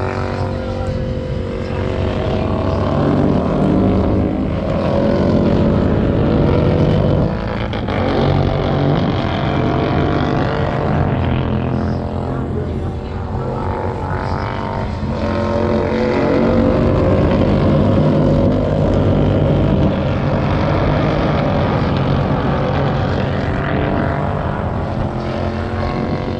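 Several Royal Enfield 650 parallel-twin race motorcycles at full throttle going round a road course, their overlapping engine notes climbing and dropping in pitch. The sound swells twice, a few seconds in and again a little past the middle, as the pack comes closer.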